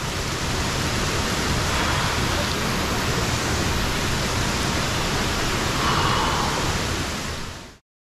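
Steady rushing of a 100-foot waterfall pouring into its pool. It cuts off abruptly just before the end.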